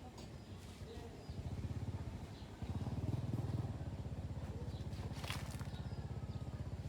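A small engine running with a rapid, even low pulse. It comes in about a second and a half in and gets louder a little later, then runs steadily.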